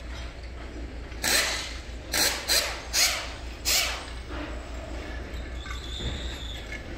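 Five short bursts of machinery noise, like a power tool working, spread over the first four seconds, over a steady low rumble.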